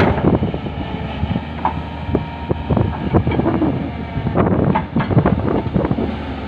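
Doosan crawler excavator's diesel engine running under load while it dumps a bucket of earth into a dump truck and swings back. Irregular knocks and clatter run over the steady engine sound and cluster again near the end.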